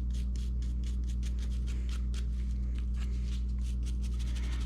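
A nylon brush scrubbing a rusty Stanley wrench fresh out of an Evaporust soak, in quick back-and-forth strokes of about four a second, over a steady low hum.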